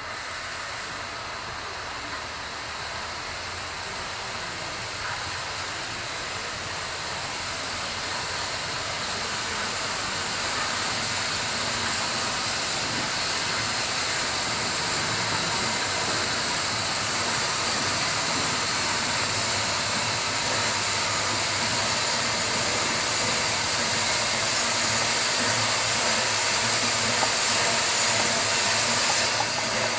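Narrow-gauge 2-8-2 steam locomotive approaching slowly with a steady hiss of steam, growing steadily louder as it nears.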